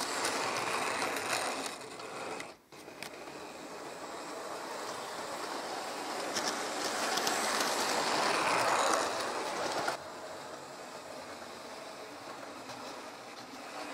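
H0-scale model train, an SU42 diesel locomotive model with double-deck coaches, running on model track: a whirring motor and wheels rattling over the rails. The sound grows louder as the train passes close, about eight to nine seconds in, then drops suddenly at ten seconds.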